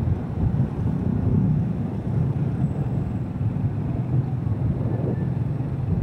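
Yamaha SZ single-cylinder motorcycle engine running steadily at low road speed, with wind and road noise on the action camera's microphone.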